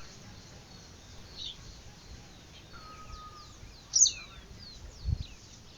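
Wild birds chirping with short high calls over a faint hiss, one louder call about four seconds in, followed a second later by a low thump.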